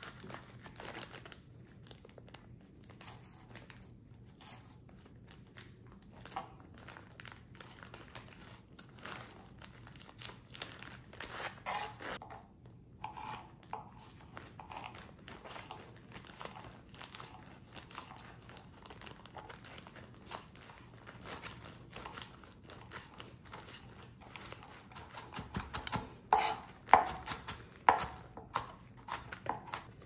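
Knife chopping fresh salsa vegetables: irregular runs of quick strokes, with the loudest strokes near the end.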